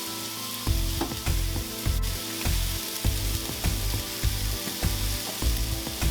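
Food sizzling and frying on a flat top griddle as a steady hiss. Background music with a steady bass beat of about two pulses a second comes in just under a second in.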